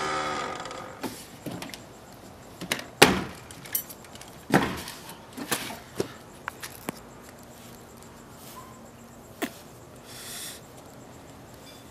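Scattered knocks, thumps and rustling as a man climbs about in and out of an open car trunk, with one sharp knock about three seconds in, the loudest. A short breathy hiss about ten seconds in, as he blows out smoke.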